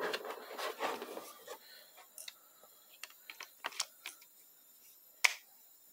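Light clicks and taps of hard plastic parts being handled: a transmission solenoid block and its control-module plate knocking together and against a plastic tray, with one sharper click about five seconds in.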